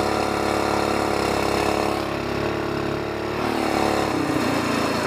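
SPS longtail mud motor engine running steadily. About four seconds in, its note drops to a slower, pulsing idle.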